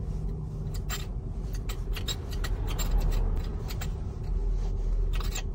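Inside a Kia car's cabin: a steady low rumble with irregular sharp clicks and ticks throughout.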